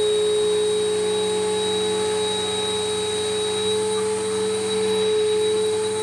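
Bissell Powerforce Helix 1240 upright vacuum cleaner running on a rug, its motor giving a steady high-pitched whine over a rush of air.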